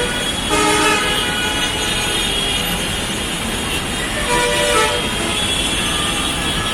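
Vehicle horns honking in street traffic: one horn blast about half a second in and another about four seconds in, over steady traffic noise.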